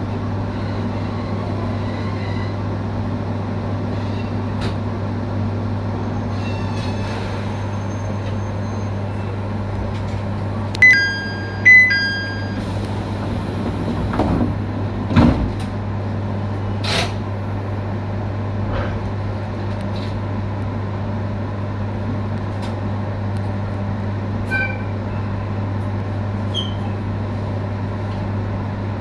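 Steady low hum inside an electric commuter train. About eleven seconds in come two short electronic beeps a second apart, then a few knocks.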